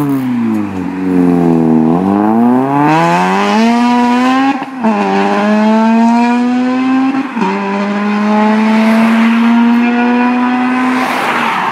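Honda Civic Type R FN2's four-cylinder engine, breathing through a Martelius exhaust and Tegiwa manifold, accelerating hard. The revs drop for a moment, then the pitch climbs steadily with two quick upshifts, about four and a half and seven and a half seconds in, before the sound fades away near the end.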